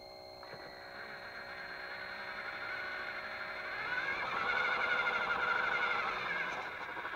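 Toy Linde forklift converted to radio control, its small electric drive motor and gearbox whining as it drives, the whine wavering in pitch and growing louder about four seconds in.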